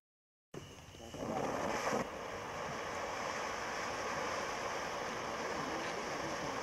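500-gram 'Golden Shower' fountain firework burning, a steady hiss of spraying sparks. It comes in about half a second in, builds for a second or so, then holds even.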